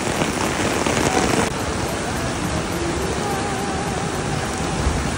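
Heavy downpour: a steady hiss of rain pelting onto a flooded street.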